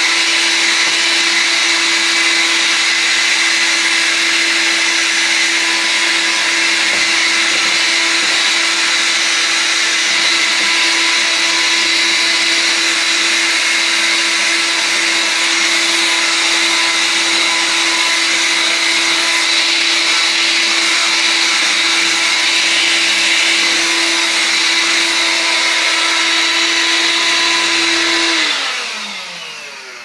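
AEG HX6-30STM cordless handheld vacuum cleaner running steadily with a constant whine and suction hiss as its nozzle works over a doormat. Near the end it is switched off and the motor winds down, its pitch falling away.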